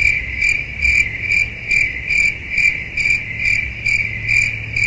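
Cricket chirping in a steady, even rhythm, about two chirps a second.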